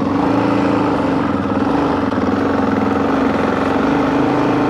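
Yamaha Ténéré 660 motorcycle engine running at a steady speed while riding, its pitch holding level, with wind and road noise underneath.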